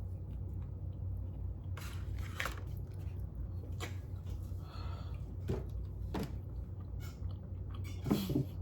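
A person chewing food close to the microphone, with a few short crunching and mouth sounds scattered through, over a steady low hum. There is a brief vocal sound near the end.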